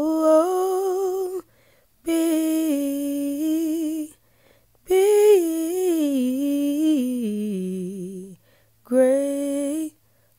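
A woman humming a slow melody unaccompanied, in four long held phrases with short breaths between, the pitch sliding and wavering within each.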